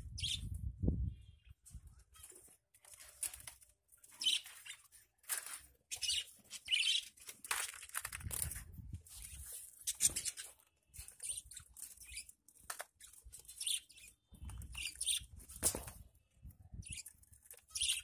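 Budgerigars chirping in short, scattered calls, with a few low bumps of handling noise.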